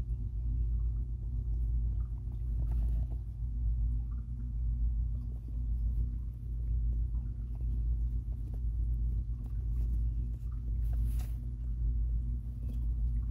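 A steady low rumble with a hum runs throughout. Faint scattered rustles and clicks sit above it, with one brief rustle about 11 seconds in, from guinea pigs moving through shredded paper bedding.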